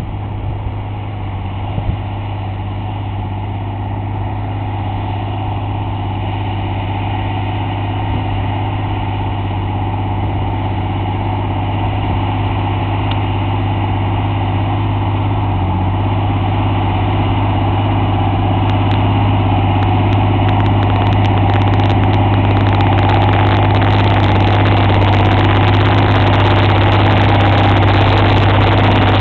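John Deere 8220 tractor's six-cylinder diesel engine running steadily under load while pulling a subsoiler, a deep even hum that grows gradually louder as the tractor comes closer.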